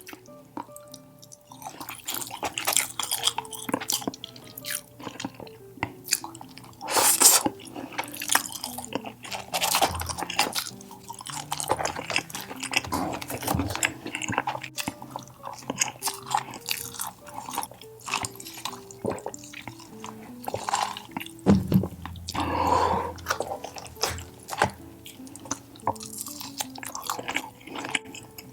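Close-miked chewing and wet mouth smacks of someone eating tandoori chicken, with frequent short clicks of biting and chewing, over soft background music.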